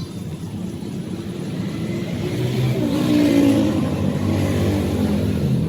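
A motor running, its pitch shifting and growing louder about halfway through.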